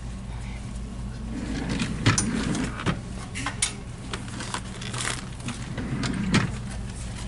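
Scattered knocks, clicks and clatter of equipment being handled around a hospital bed, over a steady low hum; the loudest knocks come about two seconds in and again near the end.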